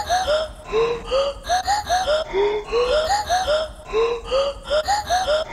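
Background music: a looping phrase of short, swooping vocal-like notes that climbs and then falls back, repeating roughly every second and a half.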